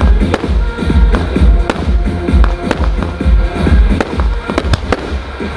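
Fireworks going off in quick succession, sharp bangs and crackles from bursting shells, over loud music with a heavy bass beat.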